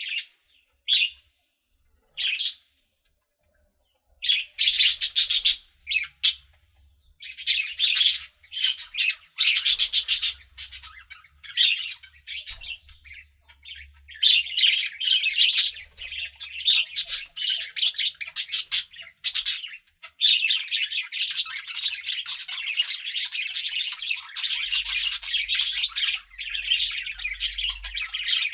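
Budgerigars chirping: a few short chirps, a gap, then from about four seconds in a dense run of rapid chirps and squawks that becomes a near-continuous warble in the last third.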